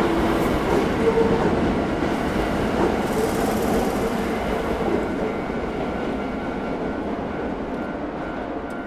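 A Hankyu electric commuter train running past over a level crossing, its wheels clattering on the rails, the sound fading steadily as it moves away.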